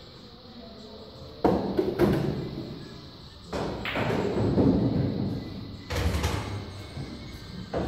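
Wooden pool-ball racking triangle lifted off the racked balls and set aside: two sharp knocks about a second and a half in, a longer stretch of handling noise in the middle, and another knock near the end.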